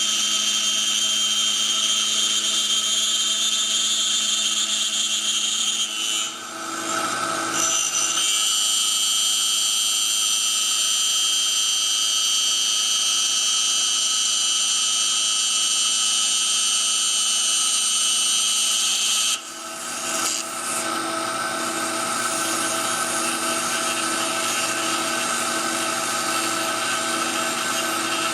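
CNC machine spindle running steadily and cutting a small wood ring insert, a high whine with several steady tones. Its sound drops and changes briefly twice, about 6 seconds in and again about 19 seconds in, as the cut changes.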